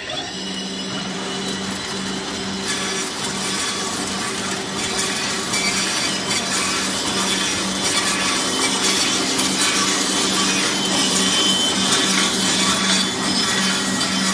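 Wood twin-chopstick shaping machine running: a steady electric motor hum under the hiss and rattle of wood being cut and shaped by its rollers and cutters. The cutting noise grows louder a few seconds in.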